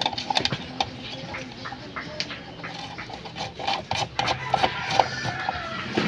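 Scattered small clicks and taps as speaker wire is fitted into an amplifier's plastic screw-down binding-post terminals and the terminal caps are turned.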